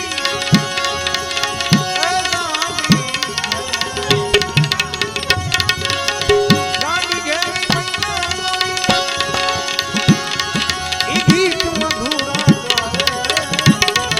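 Instrumental interlude of Gujarati devotional folk music: a tabla keeps a steady rhythm, its bass strokes bending in pitch, over sustained held notes and fast clicking percussion.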